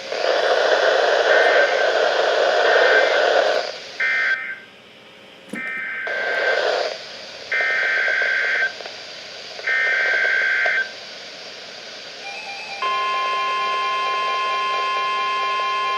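NOAA Weather Radio Specific Area Message Encoding (SAME) digital data bursts: a harsh warbling screech, first a long burst, then several shorter bursts of about a second each with gaps between them. About 13 seconds in, these give way to a steady electronic alert tone that marks the start of a new warning.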